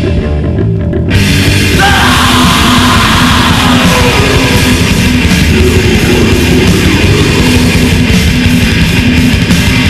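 Death/thrash metal recording with distorted guitars, bass and drums; the full band with cymbals comes in about a second in.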